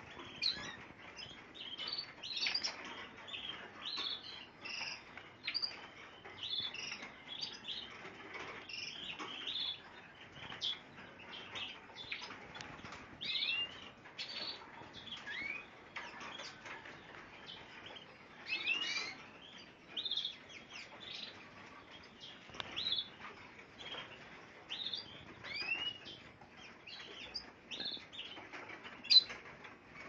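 A room of small caged finches and canaries chirping and calling over one another, with quick high notes and the odd short gliding whistle throughout. Scattered soft clicks are mixed in.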